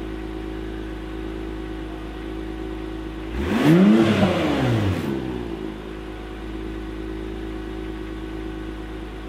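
Second-generation Acura NSX's twin-turbo V6 idling steadily, with one quick blip of the throttle about three and a half seconds in that rises and falls back to idle within about a second and a half.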